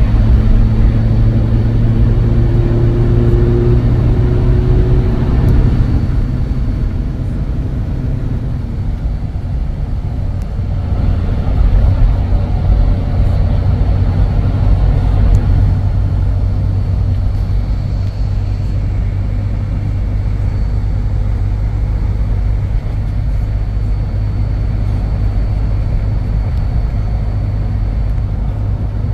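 Motor vehicle travelling on the road: a steady low engine and road hum, with a higher engine note in the first few seconds.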